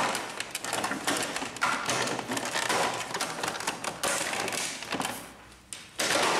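Plastic upper cover of an Epson XP-2100 inkjet printer being fitted onto the printer body by hand: an uneven run of clicks, taps and plastic-on-plastic scraping, louder near the end.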